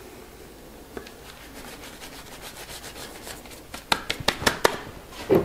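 Hands rubbing and crumbling loose foliage flock onto a model-railway shrub: a run of dry, scratchy rubbing strokes, faint at first and sharper and louder after about four seconds.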